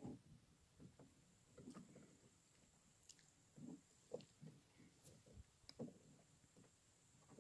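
Near silence, with a few faint scattered knocks and clicks of hands working at a small boat's outboard motor. The motor is not running.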